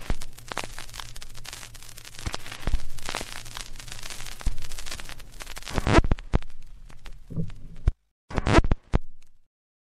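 Crackling and popping over a hiss and a low hum, a worn-record or old-film surface-noise effect, breaking off about eight seconds in, then two short spurts of crackle.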